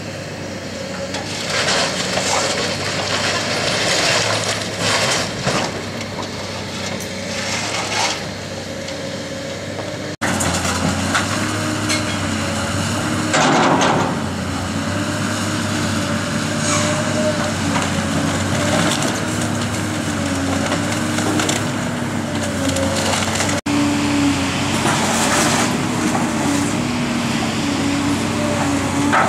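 Link-Belt 210X hydraulic excavator's diesel engine running under load, its note wavering as the hydraulics work, while the machine tears into a wood-framed building: repeated crunching, cracking and splintering of timber and roofing and the clatter of falling debris, loudest around a quarter of the way in and again near the middle.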